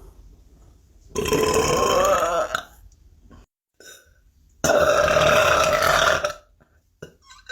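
Two long, pitched human burps, each lasting about a second and a half, with a couple of seconds of near silence between them.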